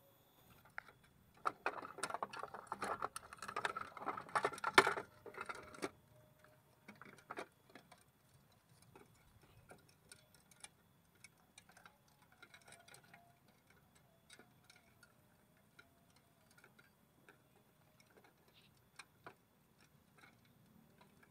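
Rapid clicking and rattling on a clear plastic drawer organizer, dense for about four seconds early on, then thinning to scattered ticks.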